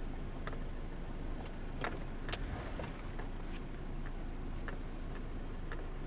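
A car heard from inside its cabin while moving slowly past an oncoming car: a low steady engine and road hum, with scattered light ticks.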